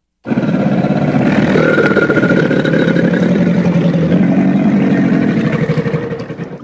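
American crocodile growling: one long, rough, rapidly pulsing rumble of about six seconds that starts just after the opening and cuts off near the end.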